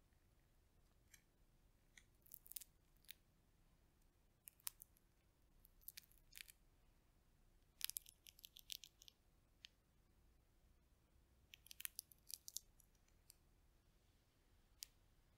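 Fingers cracking and peeling the shells of roasted chestnuts: short clusters of sharp crackling snaps with quiet pauses between, the loudest about halfway through.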